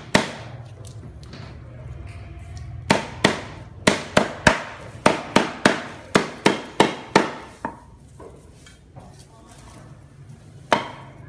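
Cleaver chopping lemongrass stalks on a wooden chopping block: one chop at the start, then a quick run of about a dozen sharp chops from about three seconds in, and a lone chop near the end.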